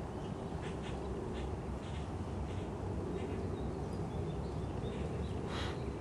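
Birds calling outdoors in short repeated calls, with faint high chirps in the second half and a louder call near the end, over a steady low rumble.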